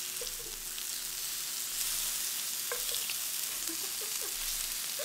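Wagyu beef and pork slices sizzling steadily on an electric smokeless tabletop grill, a continuous high hiss with small crackles from the fat.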